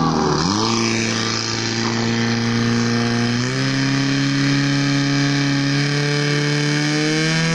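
Portable fire pump's engine running hard at high revs, pumping water out through the attack hoses. Its pitch steps up about halfway through and climbs a little more near the end.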